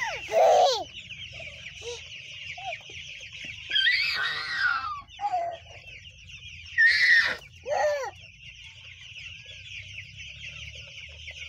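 A large flock of young broiler chicks peeping in a dense, continuous high chorus. A few loud short cries from a toddler break in, about half a second in and again around seven and eight seconds.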